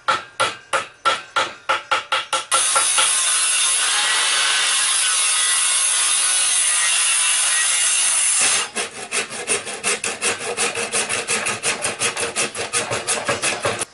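A hand saw stroked rapidly back and forth across a log, several strokes a second. About two and a half seconds in, a handheld circular saw cuts into the log steadily for about six seconds and stops abruptly, then the fast hand-sawing strokes resume.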